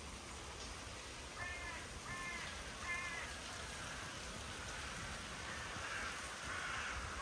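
Three short, harsh bird calls in quick succession over a steady rushing background noise that grows louder near the end.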